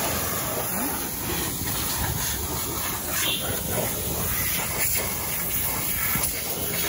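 Pressure-washer lance spraying a steady jet of water at a motorcycle and onto wet pavement.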